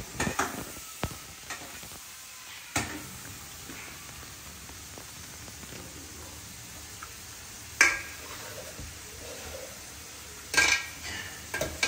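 Food sizzling in a hot frying pan while a metal spatula stirs it, knocking and scraping on the pan a handful of times. The loudest knocks come about eight seconds in and again near the end.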